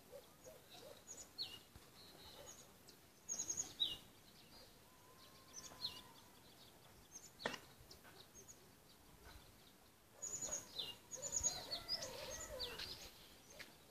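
Small birds chirping: many short, high chirps and quick falling notes, busiest about three seconds in and again in the last few seconds. A single sharp click a little past the middle.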